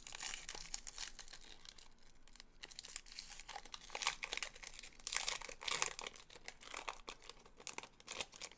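Trading cards and their pack wrappers being handled: faint, irregular rustling and crinkling in short bursts, with light clicks.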